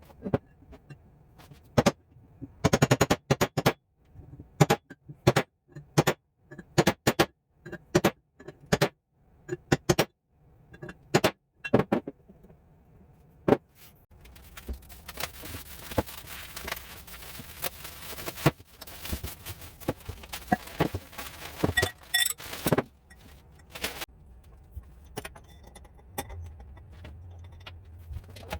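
Workshop work on motorcycle parts: a run of sharp clicks and knocks, then a steady hiss for about five seconds, then more knocks.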